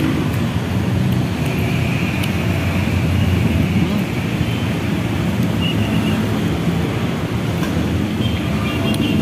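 Steady road traffic: engines of passing vehicles making a constant low rumble.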